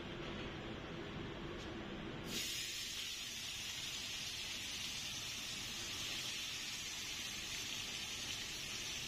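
Seasoned bone-in beef steak sizzling in a hot cast-iron skillet, a steady high hiss of searing fat and juices. The sizzle starts suddenly about two seconds in, after low background noise.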